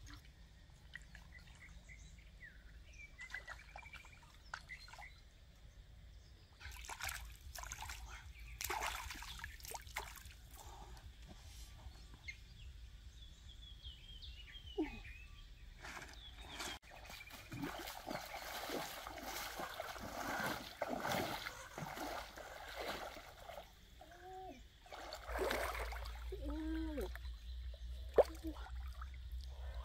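Hands splashing and sloshing in shallow pond water, in several irregular bursts, with a sharp click near the end.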